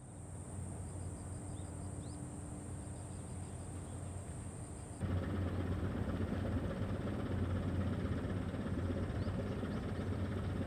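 Steady low drone of ships' engines running across the harbour, with a few faint high chirps now and then. It gets suddenly louder about halfway through.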